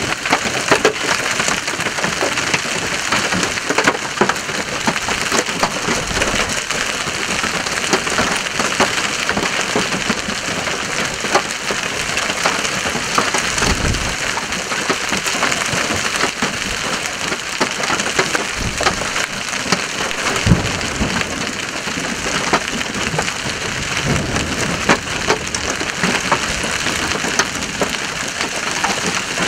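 Large hail, stones two to three inches across, pelting down heavily in a dense, continuous clatter of hits, with a few low rumbles mixed in.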